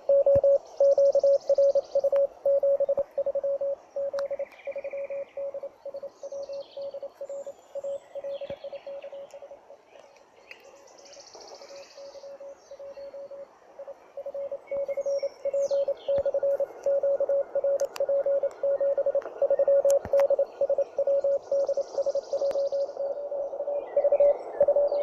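Morse code (CW) from a homemade 1 W shortwave transceiver, heard through a small portable speaker: a single mid-pitched tone keyed on and off in dots and dashes over receiver hiss. It grows fainter around the middle and comes back louder toward the end. Birds chirp a few times.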